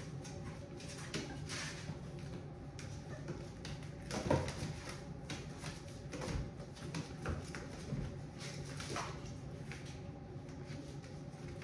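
Puppies moving about, with scattered irregular scratches, clicks and knocks, the loudest about four seconds in, over a steady low hum.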